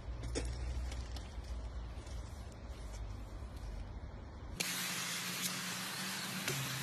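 A low hum, then about two-thirds of the way in a loud, steady spraying hiss starts abruptly as a coating is sprayed onto a mountain bike frame, with a low steady drone under it.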